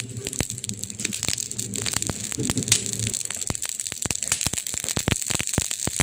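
Burning wood crackling: dense, irregular pops and snaps over a steady hiss, with one sharper snap about midway. A low hum sits under the first half and stops about three seconds in.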